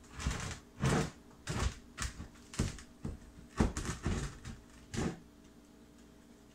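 Heavy enamelled cast iron kitchen sink knocking and scraping against the countertop as it is lowered and set into the cutout: about ten irregular knocks and scrapes over the first five seconds.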